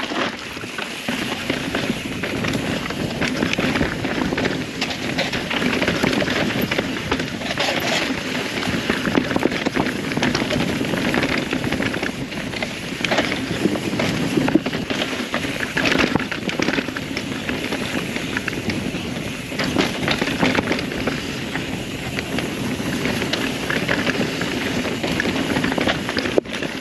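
Mountain bike ridden fast downhill on a dirt trail: a steady rush of tyres rolling over dirt and gravel, broken by frequent knocks and rattles from the bike over rough ground.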